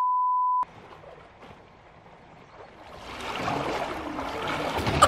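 A steady high test-tone beep for just under a second, the tone that goes with television colour bars, cutting off abruptly. After it comes faint water splashing and lapping from a swimmer in the pool, growing louder from about three seconds in.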